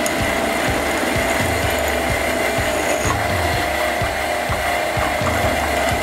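Drill press running with a steady whine while its twist bit cuts holes in a small steel plate clamped in a machine vise.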